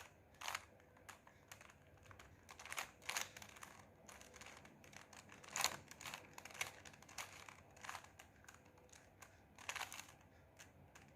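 Rubik's Cube layers being twisted by hand: faint, irregular plastic clicks and rattles, a few turns in quick succession and then a pause.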